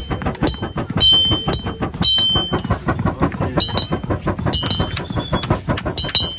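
Blacksmith's hammer striking metal at a forge, each blow ringing briefly, about once a second and not quite evenly. Under it runs the rapid puffing and rumble of hand-worked leather drum bellows blowing the charcoal fire.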